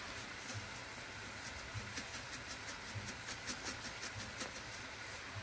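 Shredded cabbage and carrots frying in butter and oil in a pan: a steady faint sizzle with scattered small crackles.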